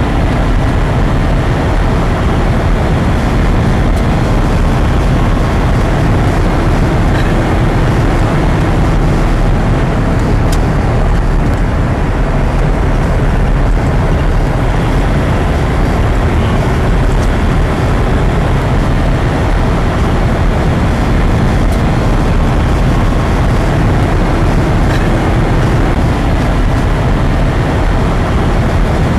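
Steady road and engine noise inside a moving car's cabin, a constant low rumble that does not rise or fall, with a few faint ticks.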